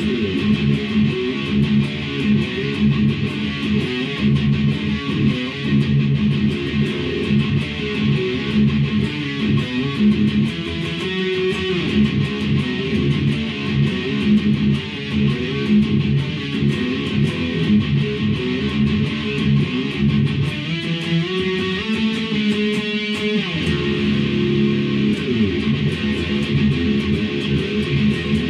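Electric guitar with its original pickups, played through an amp: continuous riffs and chords, with a climbing run of single notes about three-quarters of the way through.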